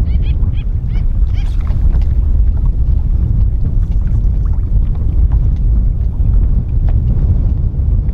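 Wind buffeting the microphone as a loud, steady low rumble, with a few short high chirps in the first two seconds.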